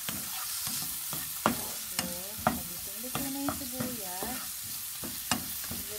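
Diced onions sizzling in butter in a nonstick frying pan, stirred with a spatula that clicks sharply against the pan several times.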